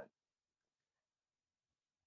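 Near silence: room tone in a pause between words.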